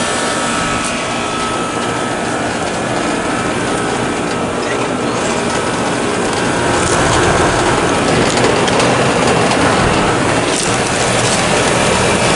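Trane XR12 central air conditioner outdoor units running, their condenser fans and compressors making a steady mechanical noise that grows a little louder about halfway through.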